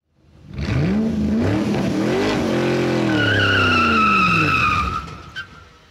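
Car engine revving up and down with tyres squealing from about three seconds in, as an intro sound effect; it fades out near the end, followed by a brief click.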